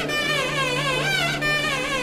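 Carnatic music: an ornamented melody line that slides and wavers continuously in pitch, over a steady low drone.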